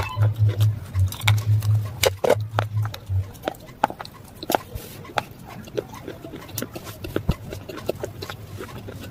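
Close-up crunching and chewing of brittle white slate-pencil pieces, a string of sharp, irregular crunches and clicks. A low pulsing throb runs underneath for the first three seconds, then stops.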